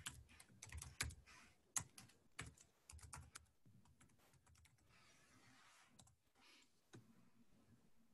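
Faint, quick clicks of computer keys being pressed, paging back through presentation slides; the clicks thin out after about three seconds.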